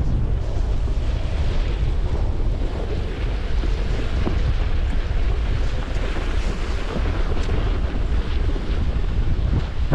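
Wind buffeting a GoPro HERO10's microphone at skiing speed, a steady heavy rumble. Over it, the hiss of skis sliding on snow swells and fades with the turns.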